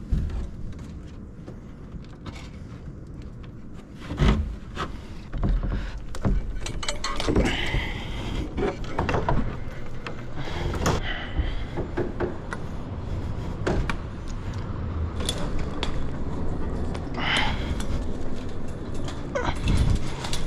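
Climbing and handling noises: irregular knocks, scuffs and rattles against wooden pallets and a chain-link fence, getting busy about four seconds in, with a few short scraping squeals. A low rumble lies underneath.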